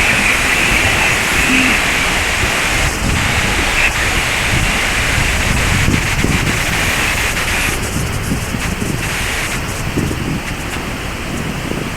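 Waterfall rushing steadily, with wind buffeting the microphone. The high hiss thins a little about eight seconds in.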